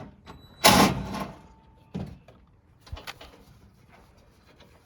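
A loud scraping rattle about a second in as a trim piece is pried loose, followed by a couple of knocks.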